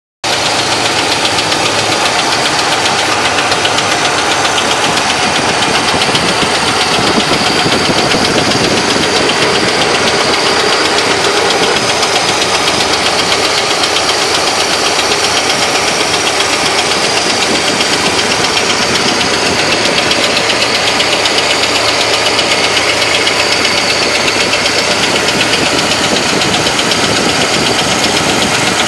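1970 Chevrolet Malibu's small-block Chevy 350 V8 running steadily with a loud, rapid knock, like an engine being struck hard with a screwdriver handle. The source of the knock has not yet been found.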